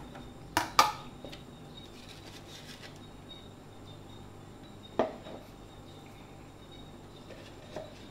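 A metal spoon clinking as palm sugar is spooned into a nonstick frying pan: two quick clinks under a second in and a single sharp one about five seconds in, with little else between.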